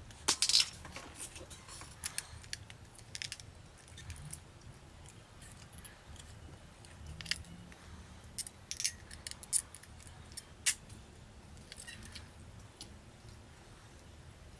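Small plastic and metal parts of a Nikon Coolpix AW110 camera clicking and rattling as they are handled and pried apart by hand: irregular sharp clicks, loudest about half a second in.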